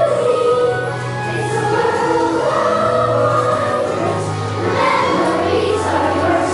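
A group of voices singing together in held notes over musical accompaniment.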